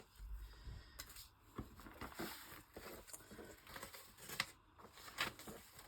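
Paper cut-outs and a plastic sleeve being handled: faint, scattered rustles and light taps, with a soft low thud near the start.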